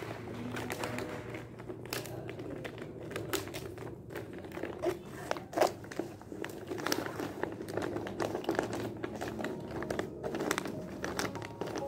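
Paper and a clear plastic sleeve rustling and crinkling as they are handled, with many small irregular clicks and knocks, the sharpest about five and a half seconds in.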